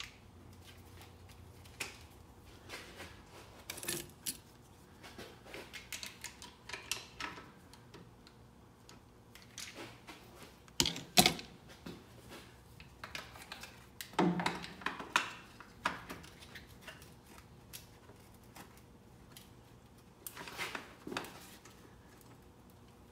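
Scattered metallic clicks, clinks and knocks of hand tools and metal parts being handled while a replacement transfer case encoder motor is worked into alignment on the transfer case. The loudest is a pair of sharp knocks about eleven seconds in.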